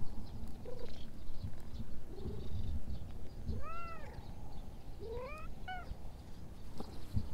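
Domestic cat meowing: one arching meow about three and a half seconds in, then a rising meow followed by a couple of short chirps around five seconds in.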